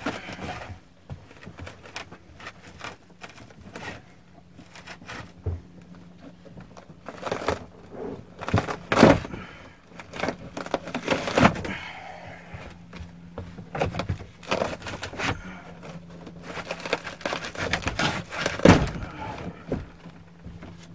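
Trim strip being pulled off a shuttle bus's overhead luggage bin: irregular clicks, snaps and knocks, with a few louder knocks scattered through.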